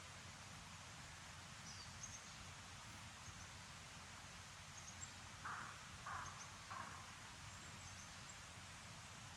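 Quiet outdoor forest ambience: a steady low hiss with faint high chirps throughout, and three short calls about half a second apart a little past the middle.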